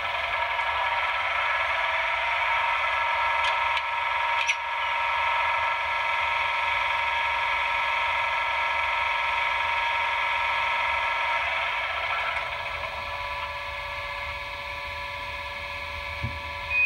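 H0 model electric locomotive's sound decoder playing its running sound through the model's small speaker: a steady hum of several even tones, quieter from about twelve seconds in. One short click about four and a half seconds in.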